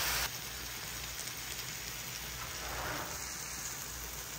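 Curry masala frying in a pot, a steady sizzle.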